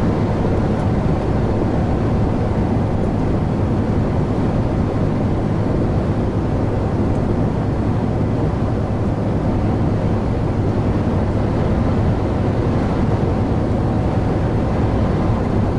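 Steady drone inside a lorry's cab cruising on the motorway: engine running with a constant low hum, under tyre and wind noise.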